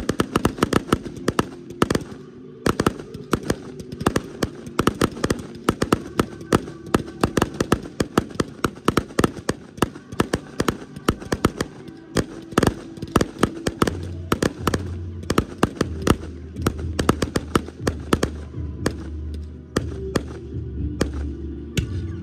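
Fireworks display: aerial shells bursting in a rapid, uneven barrage of bangs and crackles, several a second, with music playing underneath. A low bass note joins the music about two-thirds of the way through.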